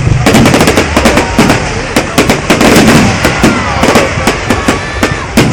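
Fireworks going off in rapid succession: a dense run of loud bangs and crackles, many a second.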